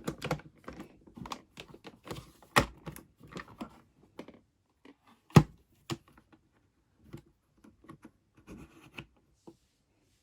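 Small pieces of a miniature toy kitchen set being handled and set down: scattered light taps, clicks and rustles, with a sharper click about five seconds in.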